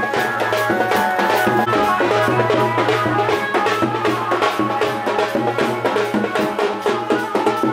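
Music driven by fast, dense drumming, with sustained instrumental tones underneath.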